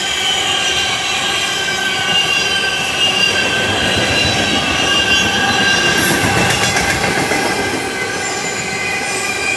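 Tank cars of a CSX freight train rolling past at speed: a steady rumble of wheels on rail, with a high, thin squeal of wheels.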